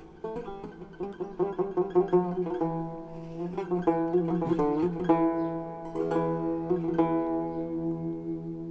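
Soundtrack music: a gentle plucked-string melody over held notes, fading out near the end.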